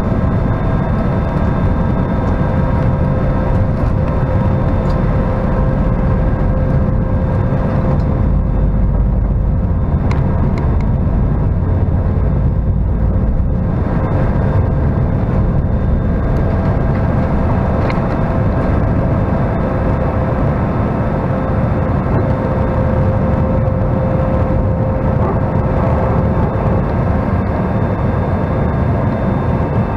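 Steady cabin noise of an Airbus A319's IAE V2500 turbofan engines at takeoff and climb power: a deep rumble with several steady whining fan tones over it.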